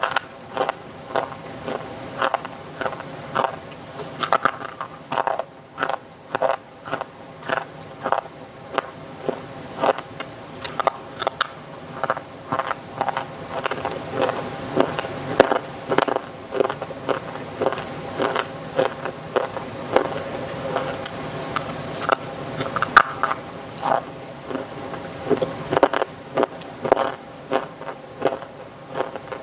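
Dry crunchy clay being crunched close to the microphone: a continuous run of sharp, crackly crunches, about one to two a second. A faint steady hum runs underneath, which the uploader calls a sound disturbance from a new microphone.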